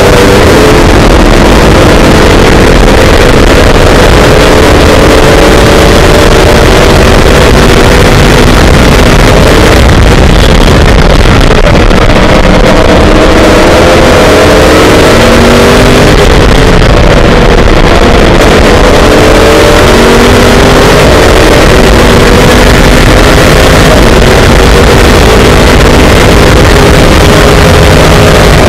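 Oreca FLM09 Le Mans prototype's V8 engine heard from the cockpit at race speed, its pitch climbing repeatedly and stepping down as the driver works through the gears. Heavy wind rush on the microphone runs under it.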